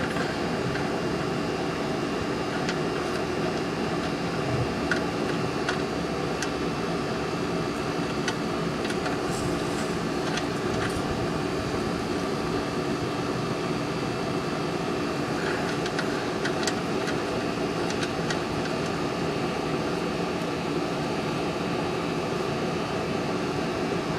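Steady background hum and hiss at an even level, with a few faint small clicks and ticks.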